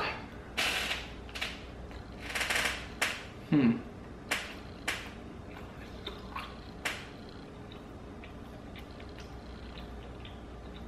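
Close-up chewing of a bite of almond pretzel dipped in glaze: wet mouth clicks and crunching for about seven seconds, with a brief falling hum about three and a half seconds in, then only faint clicks.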